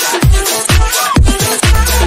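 Electronic dance music with a deep, pitch-dropping kick drum beating about twice a second over a dense synth backing.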